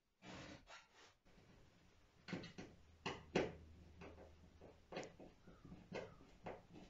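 Irregular clicks and knocks of hand work with clamps and tools along the edge of a wooden boat hull, the loudest knock a little after three seconds in. A low hum runs under the middle of it.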